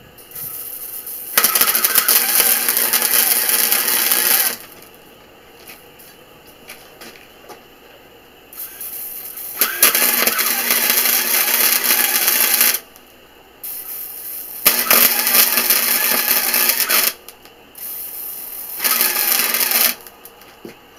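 Small wire-feed welder's arc crackling as it welds steel horse-panel wire into a cage. There are four separate welds, each a few seconds long with short pauses between them, and the last is the shortest.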